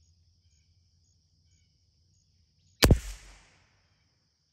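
A single .22 LR rifle shot about three seconds in, a sharp crack with a short echoing tail, over a steady high buzz of insects.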